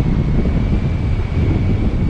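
Wind buffeting the microphone of a kite-lifted camera, a loud, rough, steady rumble, with the kite line humming on one thin, steady high note.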